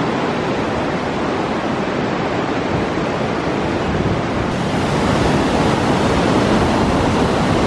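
Waterfall rushing: a loud, steady roar of falling water. About four and a half seconds in it turns brighter and hissier.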